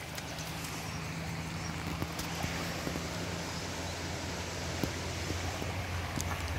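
River water running over a stony bed, with scattered light clicks and splashes as a wet dog steps through the shallows and onto the bank, over a steady low hum.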